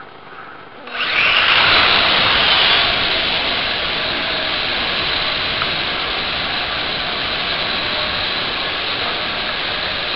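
Small RC quadcopter's electric motors and propellers spinning up abruptly about a second in as it lifts off, then running steadily in flight, very close to a camera carried on the craft.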